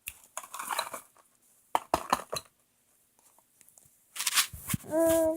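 Small plastic toy pieces clicking and rustling as they are handled, in scattered short bursts, with a brief steady pitched sound near the end.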